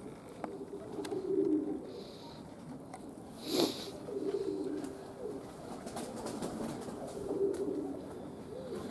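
Pigeons cooing in three low, wavering spells, with a short sharp burst of noise about three and a half seconds in.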